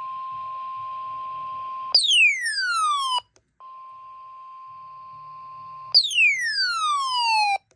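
Emergency alert tones before a tornado warning broadcast: a steady electronic tone near 1 kHz, twice broken by a loud falling electronic sweep lasting about a second and a half, one about 2 s in and one about 6 s in.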